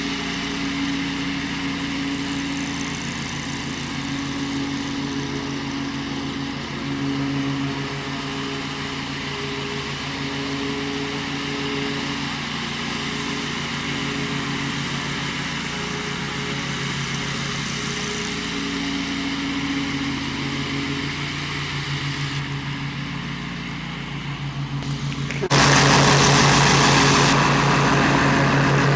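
Bad Boy Rambler 42-inch zero-turn mower's Kohler engine running steadily under mowing load, its pitch wavering a little. About 25 seconds in, a loud rushing noise suddenly comes in over the engine.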